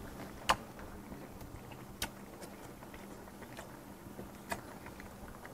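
Quiet eating sounds: a man chewing a hot mouthful of shabu-shabu, with a few short sharp clicks, the loudest about half a second and two seconds in, over a faint steady low hum.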